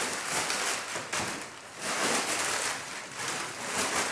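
Crumpled brown packing paper rustling and crinkling as it is pulled out of a cardboard box, in several spells with short pauses between.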